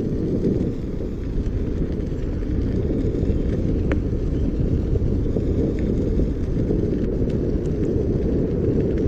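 Steady low rumble of wind on the microphone and tyre noise while an Inmotion V10F electric unicycle is ridden, with one faint tick about four seconds in.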